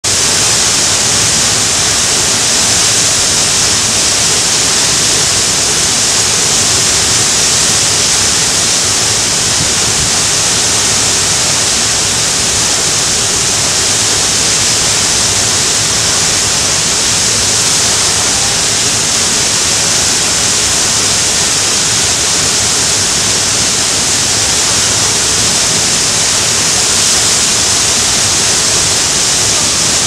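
Large river waterfall pouring over rock ledges: a loud, steady rush of falling water with a strong hiss.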